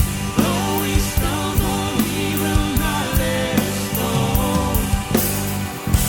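Worship band playing a contemporary Christian song: a sung vocal line over a steady drum beat with hits about twice a second and a sustained bass and guitar bed.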